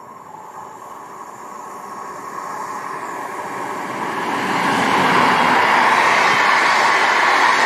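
Siemens Vectron electric locomotive hauling a rake of passenger coaches past on the rails: the rolling noise grows steadily louder over the first four to five seconds as it approaches, then holds steady as the coaches go by.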